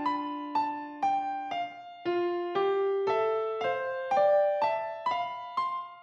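Background music: a gentle keyboard tune played one note about every half second, each note fading before the next.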